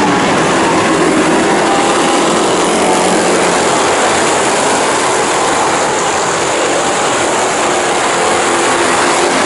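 A pack of Thunder Stock race cars racing together on a dirt oval, their engines blending into one loud, steady din.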